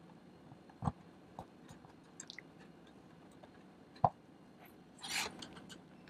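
Scattered light clicks and knocks of a screwdriver and fingers on the SSD's mounting screws and metal drive bracket as the screws are tightened, with the loudest knock about four seconds in and a short rustle near the end.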